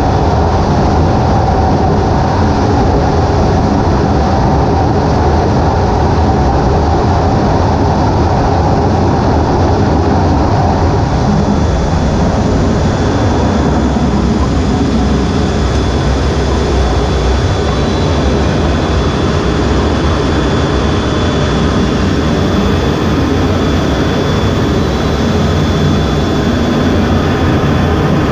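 Steady, loud jet engine roar on an aircraft carrier's flight deck, heard from the cockpit of an EA-18G Growler with its twin turbofans running before a catapult launch. A faint high whine comes in about halfway through.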